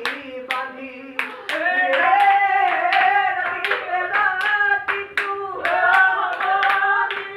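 A Bihu song sung with hand claps keeping a steady beat of about two to three claps a second.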